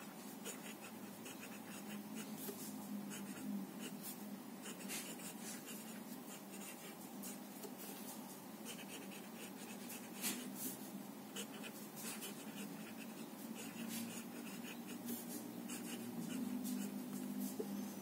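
Nib of a Staedtler Initium Metallum fountain pen scratching softly across paper in a run of short, irregular strokes as cursive words are written.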